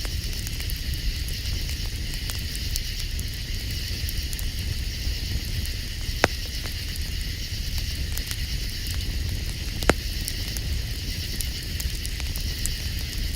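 Campfire crackling, with scattered small snaps and two loud pops, one about six seconds in and one near ten seconds. Under it run a steady high-pitched drone and a low rumble.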